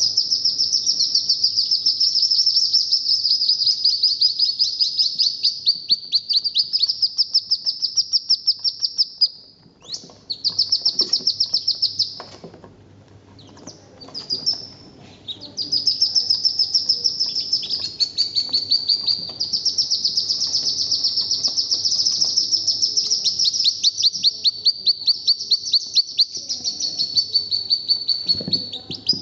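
Mixed group of young ducklings (hooded merganser, wood duck and mallard) peeping continuously in rapid high-pitched series, several peeps a second, often overlapping. The peeping fades for a few seconds a little before the middle, then picks up again.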